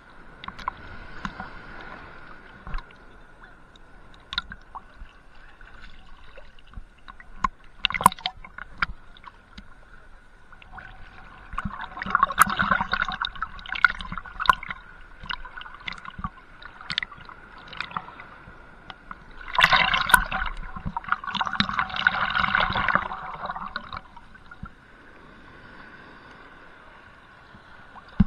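Seawater sloshing and gurgling against a camera held at the ocean surface, with scattered sharp taps of water on the camera and two longer stretches of churning water, about eleven and twenty seconds in.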